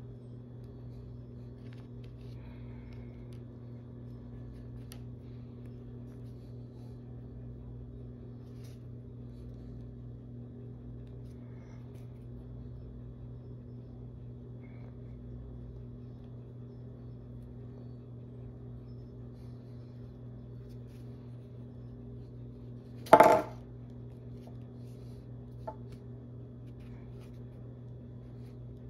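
Steady low hum with faint small ticks of hand work on clay. About three-quarters of the way through comes one short, loud clatter of a hard tool set down or dropped on the work table, with a brief ring.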